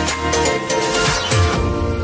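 Background music: an electronic track with a steady beat that drops out about one and a half seconds in, leaving soft held chords.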